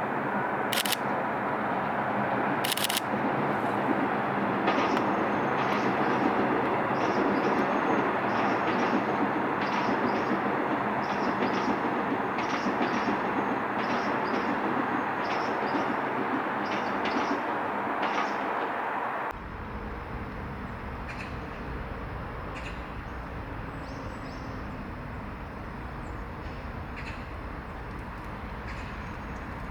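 Korail 2019-built Seoul Subway Line 4 electric train running on the track: a steady rushing rolling noise with scattered short clicks. About two-thirds of the way in it drops abruptly to a quieter, deeper rumble.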